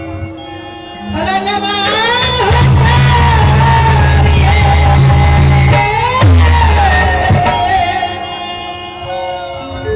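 Loud live stage music from keyboard and drums, with a voice singing long held, wavering notes over it and swooping sharply in pitch about six seconds in.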